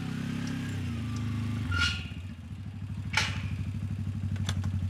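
Quad bike (ATV) engine running as it moves slowly over grass; about two seconds in its note drops into a lower, pulsing beat. A few brief clicks sound over it.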